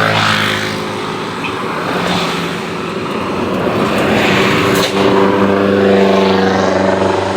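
Tour bus passing while sounding its Basuri multi-tone 'telolet' air horn in long steady tones over engine noise, the horn strongest for the last three seconds or so. There is one sharp click about five seconds in.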